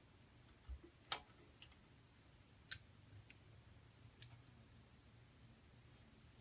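Faint, scattered small clicks and taps of hand tools (a yellow-handled driver, then needle-nose pliers) against components inside the open Cobra 29 CB radio chassis. There are about six clicks, the loudest just after a second in, with a hush between them.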